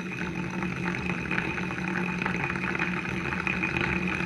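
Shimano Curado BFS XG baitcasting reel cranked steadily, its gears giving a continuous whir as braided line winds onto the spool.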